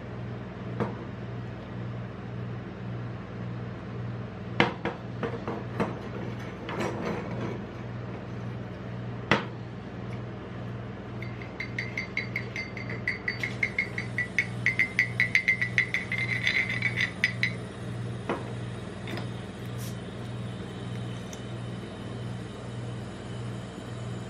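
Glass soda bottle handled on a steel cold plate, knocking and clinking a few times. A bottle opener then levers off the crown cap, and the carbonated soda fizzes and foams over, with a fast run of small crackling ticks and a steady hiss of escaping gas. A steady low hum runs underneath.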